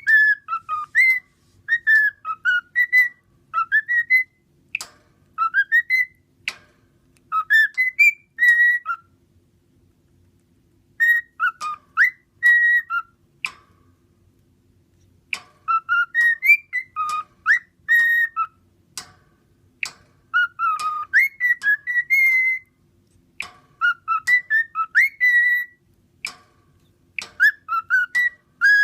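Cockatiel whistling its song: short whistled notes gliding up and down, strung into phrases a few seconds long with brief pauses between them, and sharp clicks among the notes.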